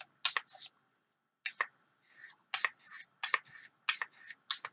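Knife blade drawn across the ceramic side of a pocket diamond/ceramic sharpener: a run of short, sharp scraping strokes, mostly in quick pairs, about ten in all, as the edge is honed.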